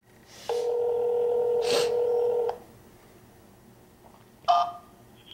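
A telephone ringback tone heard through a cell phone: one steady ring lasting about two seconds while the call connects, followed by a short blip near the end.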